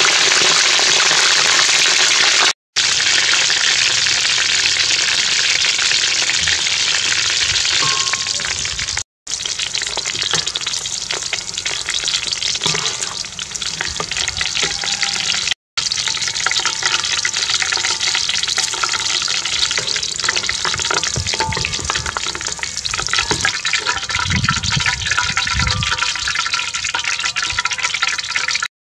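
Chicken wings deep-frying in hot oil in a wok: a steady, loud sizzle with dense crackling, cut off briefly three times.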